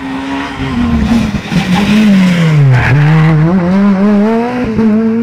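Rally car engine, loud, slowing into a hairpin and then accelerating out of it. Its note falls steadily for about three seconds, then climbs again in steps as the car pulls away.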